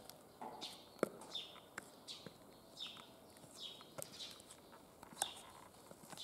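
Stiletto heels of tall platform sandals clicking on concrete in a few scattered steps, the loudest about a second in. A bird repeats a short falling chirp over and over beneath the clicks.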